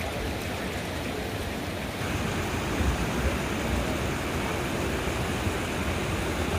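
Steady rush of a fast mountain river over rocks, getting louder about two seconds in, with a low uneven rumble underneath.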